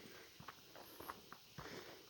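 Faint footsteps of a hiker on a forest trail: a few soft steps and scuffs.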